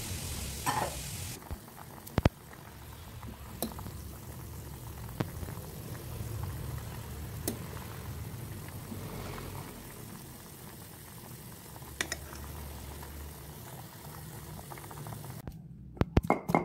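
A pot of beef and water simmering, a steady bubbling with a few faint clicks. Near the end it gives way to a quick run of sharp knocks as boiled beef is pounded flat on a stone mortar.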